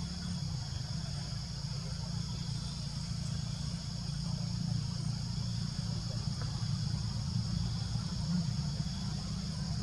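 Steady chorus of insects, a constant high buzzing, over a steady low rumble.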